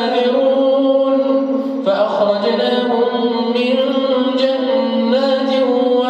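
Man's voice reciting the Quran in a slow, melodic chant, holding long sustained notes, with a shift in pitch about two seconds in.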